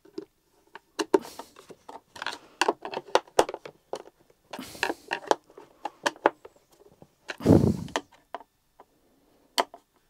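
Hand screwdriver driving screws into the plastic motor head of a Numatic Henry vacuum cleaner: repeated small clicks and scrapes of the screwdriver and plastic parts, with a couple of heavier knocks, the loudest about seven and a half seconds in.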